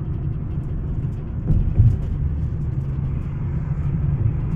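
Steady low rumble of a car's engine and tyres heard from inside the cabin while driving, with two brief thumps about a second and a half in.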